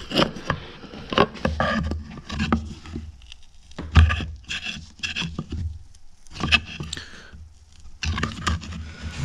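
A screwdriver scraping and levering at a stuck piston inside a metal motorcycle brake caliper, with the caliper knocking against a wooden board, in several short irregular bursts. The piston stays seized.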